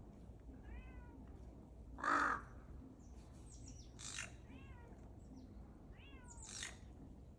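Crows cawing three times, with harsh rasping calls; the loudest comes about two seconds in. Between them a cat gives three short meows that fall in pitch.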